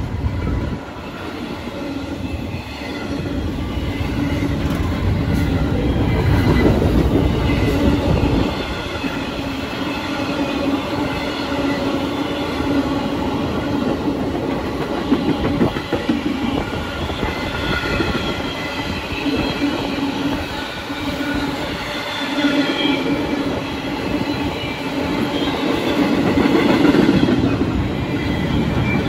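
Freight train of double-stack intermodal well cars, mostly empty, rolling past with a steady rumble and clatter of wheels over the rails. Steady squealing tones ride on top of it.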